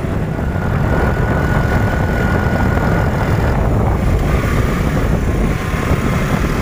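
Motor scooter riding along, its engine running under a steady rumble of wind on the microphone.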